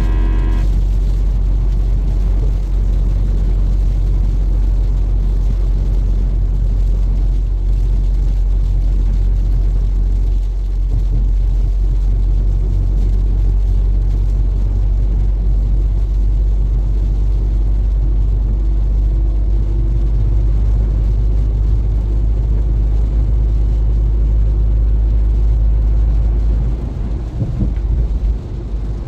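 Truck driving along the road: a steady low rumble of engine and road noise, the empty truck pushed about by strong wind and rain. The rumble turns rougher near the end.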